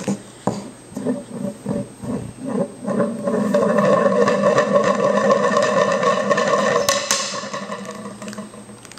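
Baby vocalizing: a few short low sounds, then a long, steady high-pitched hum or 'aah' held for about five seconds from around three seconds in, fading near the end.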